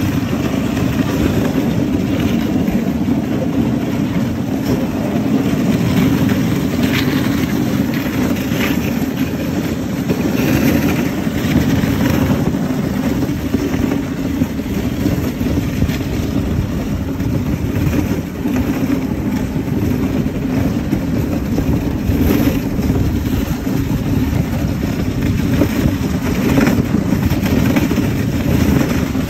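Steady rushing rumble of a husky-drawn sled moving over packed snow: the runners sliding on the trail with wind buffeting the microphone, and faint scattered ticks.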